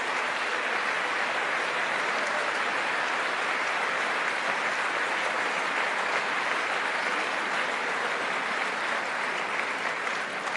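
Sustained applause from a large crowd of clapping people, steady and starting to die away near the end.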